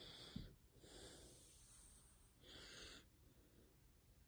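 Near silence with a few faint breaths, each about half a second to a second long, and a soft low bump about half a second in.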